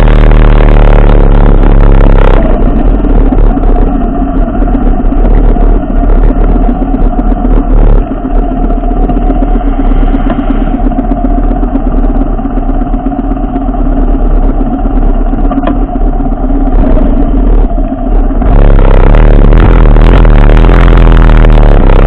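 Motorcycle engine and wind rush while riding. From about two seconds in, the bike is stopped and several motorcycle engines idle steadily. Near the end the wind rush comes back as the bike moves off again.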